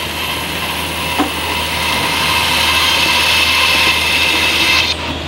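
Steady hiss with a high whine from assembly-line machinery or a power tool on the factory floor. It swells a little and cuts off abruptly near the end, with a faint tick about a second in.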